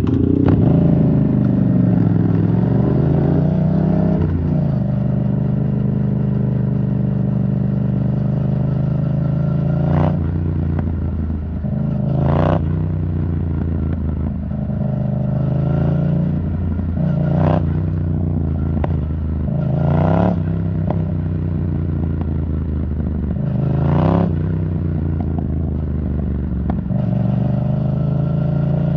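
Yamaha MT-07's parallel-twin engine running through an Arrow Thunder titanium exhaust while riding. The engine note rises and falls with the throttle, and several short sharp bursts are spread through it.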